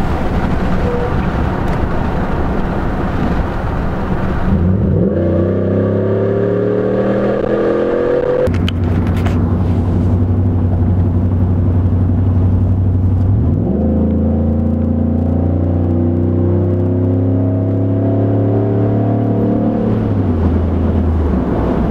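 Ford F-150's 5.0 V8 with an MBRP side-exit exhaust, heard from inside the cab with the windows open. Wind rushes in at first. About five seconds in the exhaust note climbs in pitch under acceleration, drops sharply at an upshift and holds a steady low drone, then climbs again before easing off near the end.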